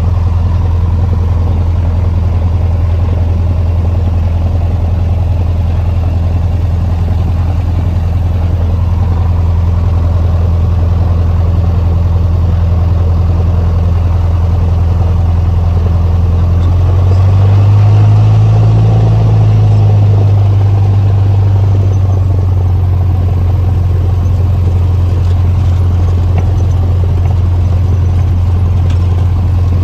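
Cessna 150's four-cylinder Continental O-200 engine and propeller running with a steady drone; a little over halfway through the engine speed rises briefly, getting slightly louder and higher, then settles back.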